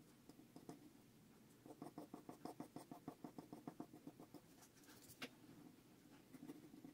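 Faint pencil scratching on paper as lips are shaded, with a quick run of short back-and-forth strokes, about eight a second, in the middle. One sharper tick comes near the end.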